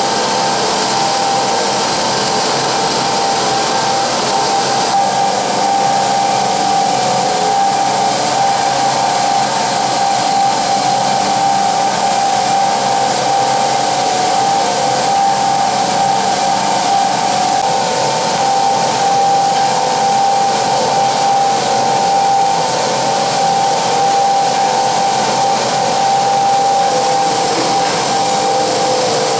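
CNC sanding and polishing machine for tank bottoms running: a steady motor whine over an even abrasive hiss.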